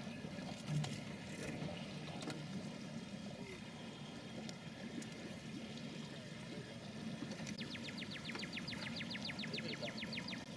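Outdoor river ambience heard from a boat: a steady low rumble with water sounds, and a soft low knock about a second in. Near the end a rapid high trill of short clicks, about a dozen a second, runs for about two and a half seconds.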